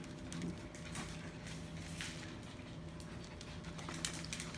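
Three-week-old puppies padding and scuffling about on quilted fabric pads, soft scattered ticks and rustles, over a steady low hum.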